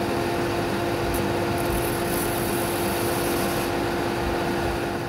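Ryobi benchtop belt and disc sander running with a steady motor hum and belt noise, while a 6 mm MDF template is sanded against the belt.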